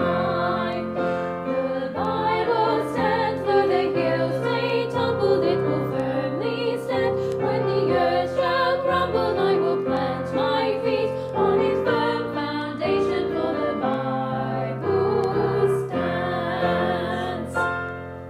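Choir singing a hymn with piano accompaniment, with the final chord fading away near the end.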